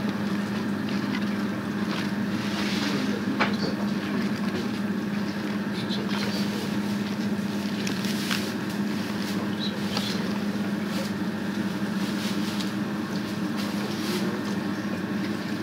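A steady low hum with a hiss over it, from an unseen motor or fan. Scattered short rustles and clicks come from wet collard green leaves being handled.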